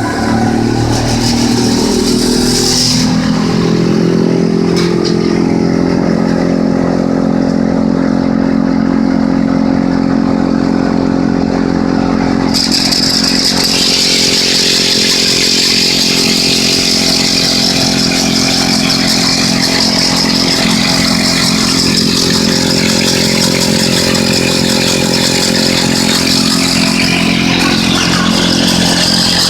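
Motor-driven pencil-sharpening machine running steadily with a motor hum. About twelve seconds in a high grinding hiss joins and holds, as a pencil is ground against it.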